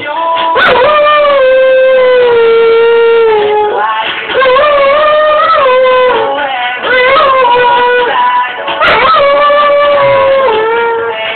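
Dog howling along to a pop song, in about four long, drawn-out howls, each held for two to four seconds with a slight waver in pitch.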